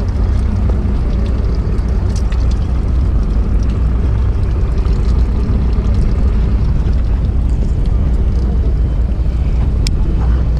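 A fishing boat's engine running steadily, a low hum, with wind buffeting the microphone and a sharp click near the end.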